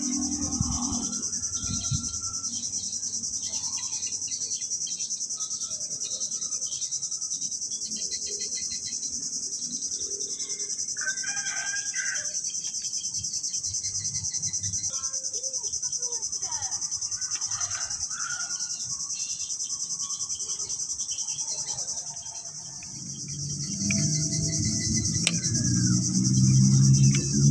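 Steady high-pitched drone of insects, with a few scattered bird chirps. A louder low sound comes in over the last few seconds.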